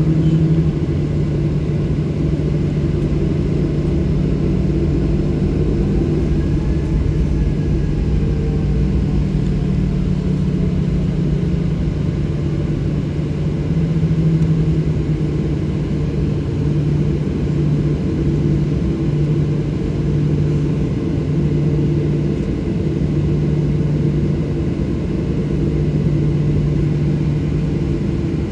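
Boeing 737-800 cabin with its CFM56-7B engines idling: a steady drone with a low rumble and no spool-up. The jet is lined up on the runway, waiting for takeoff thrust.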